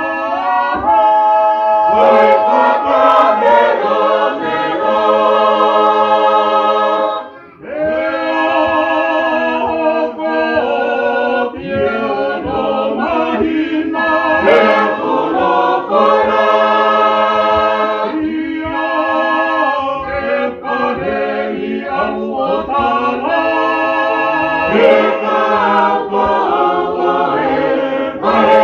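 Tongan church choir singing a hymn in several voice parts, in long sustained phrases, with a brief break about seven and a half seconds in.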